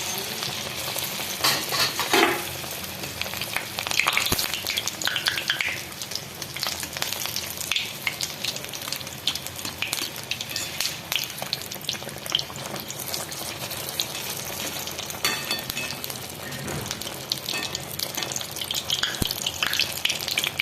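Malpua (pua) batter of wheat flour and banana frying in hot oil in a kadai: a steady sizzle full of small crackling pops. It grows louder in surges about two seconds in and again around four to six seconds in.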